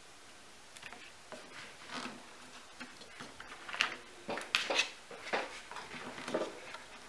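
Cardstock being handled, folded and pressed into place: irregular rustles and small taps and clicks starting about a second in, the sharpest a little past the middle.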